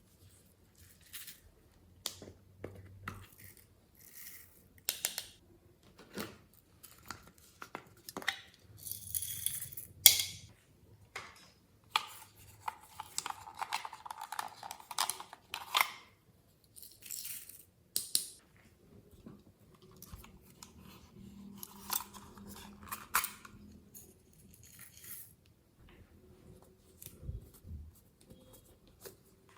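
Glossy slime being handled and mixed by hand: irregular sticky clicks, pops and crackles, with a few longer rustling, squelching stretches.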